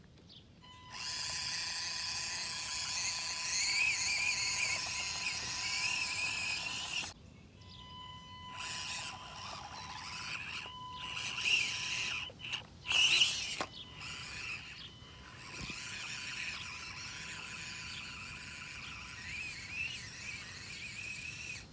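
Whine of the small electric motor and gears of an Axial SCX24 1/24-scale RC crawler as it drives, high-pitched with a steady tone. It breaks off abruptly about seven seconds in and carries on quieter and more uneven after that.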